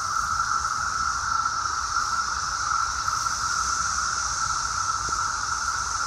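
Dense chorus of Brood V 17-year periodical cicadas: a steady, unbroken howling drone with a thinner, higher hiss above it.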